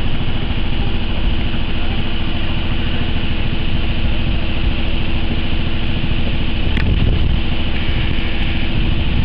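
A boat's engine running at a steady low hum, with wind rumbling on the microphone.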